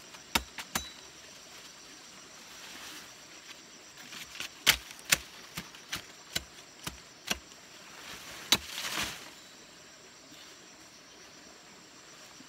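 Sharp snaps and cracks of leafy plant stems and branches being broken off while clearing brush, about a dozen in irregular clusters. A loud snap is followed by a short rustle of leaves.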